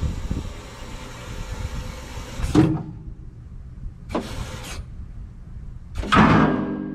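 Hydraulic scissor lift table lowering, a steady rush with a low rumble that cuts off with a clunk about two and a half seconds in as the table reaches the bottom. A brief burst of noise follows, then a louder sudden sound near the end that leaves steady tones ringing on.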